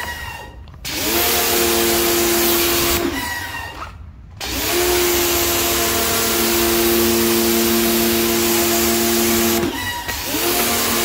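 Pressure washer running and spraying water onto floor tiles, a steady motor hum under a hiss of spray. It cuts out briefly three times, at the start, about three to four seconds in and near the end, and each time winds back up with a rising hum.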